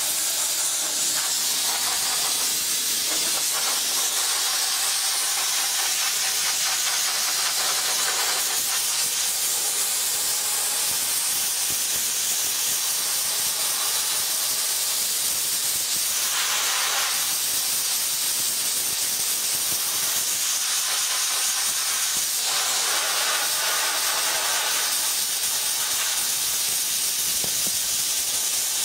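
Sodablaster TESI 40 Eco Line soda blaster: compressed air and soda abrasive hissing steadily from the hand nozzle as it blasts a wooden surface. The hiss holds at one level throughout, its tone shifting slightly a few times.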